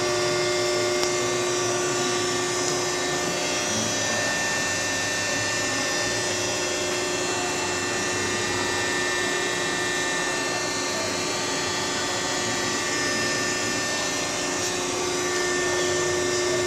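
Machinery in a steel shop running steadily: a constant drone with several steady whining tones over it, unchanging throughout.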